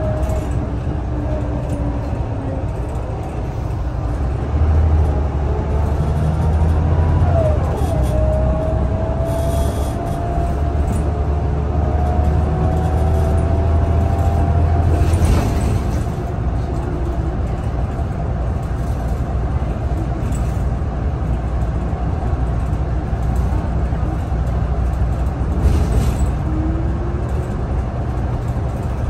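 Scania L94UB city bus heard from inside the passenger cabin while under way: a steady low engine drone, with whines slowly rising in pitch as the bus picks up speed, and a short knock about halfway through.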